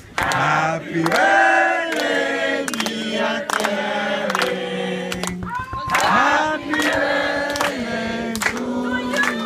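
A group of people singing together in unison, with held notes, over steady rhythmic hand clapping about twice a second.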